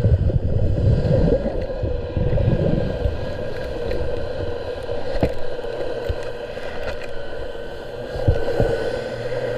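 Underwater hull cleaning: a steady mechanical hum with water churning, heavier in the first few seconds, and a couple of sharp knocks against the hull, about five and eight seconds in.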